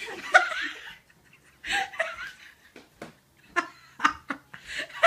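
A woman laughing in short, separate bursts.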